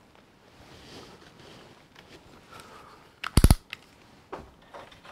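Plastic toy vehicle being handled while a rubber band is worked off it: faint rustling and scraping, then a quick cluster of sharp clicks a little over three seconds in, followed by a few lighter clicks.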